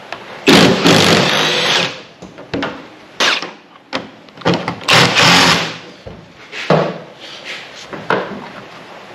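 Cordless Milwaukee power driver with a socket on it running in short bursts, backing out fender bolts. The first burst lasts about a second and a half, followed by four briefer ones.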